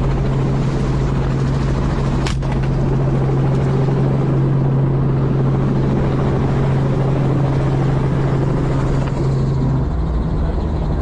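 Helicopter engine and rotor drone heard from the open-door cabin, loud and steady with wind noise, broken about two seconds in by a single sharp shot from a suppressed rifle. Near the end the steady low tone of the drone changes.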